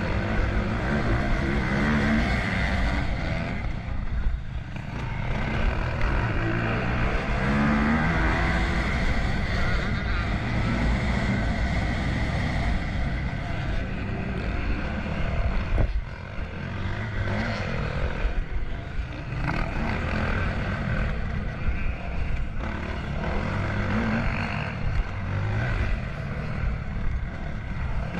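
Motocross bike engine heard from on board, revving up and down as the rider works the throttle around the track, with brief drops in loudness about four seconds in and again around the middle where the throttle is shut off.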